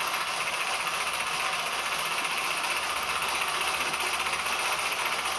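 Clydon 13/4 toy live-steam engine running steadily under steam, its mechanism making a fast, even ticking clatter over a hiss.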